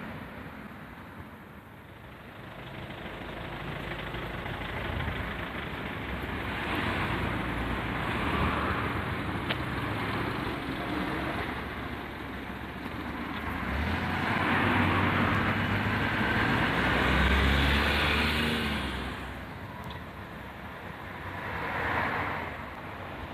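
Road traffic passing over a railway level crossing: several vehicles swell and fade in turn. The loudest, about three-quarters of the way through, brings a deep engine rumble.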